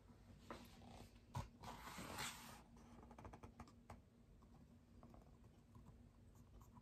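A hardcover picture book's page being turned and the book lifted: a sharp tap about a second and a half in, a papery swish for about a second, then a few faint light ticks.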